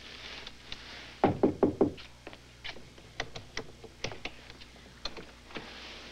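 Four loud knocks in quick succession on a door, followed by a scattered run of sharp, lighter clicks and clacks from the door's lock and sliding bar bolt being worked.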